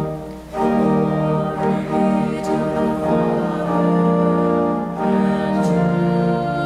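Church organ accompanying a congregation singing a hymn or sung response, with a brief break between phrases about half a second in.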